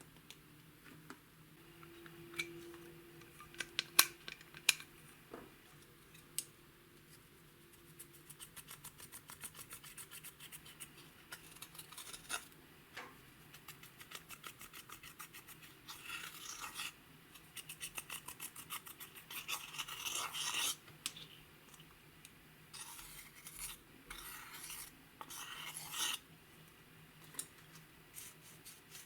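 Slime being mixed and worked by hand, making small sticky clicks and pops. It starts with a few sharp clicks, then a quick even run of ticks, then longer crackly squelching bursts.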